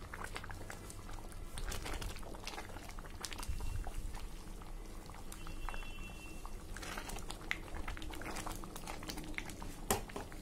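Curdled milk boiling hard in a wide pan, bubbling and popping over a steady low rumble, with a silicone spatula stirring through it now and then and one sharper tap near the end. The milk has split and is being boiled down on a high flame to dry off its water.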